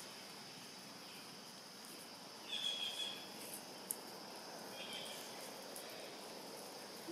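Steady high-pitched insect drone in the trees, with two short high calls about two and a half and five seconds in.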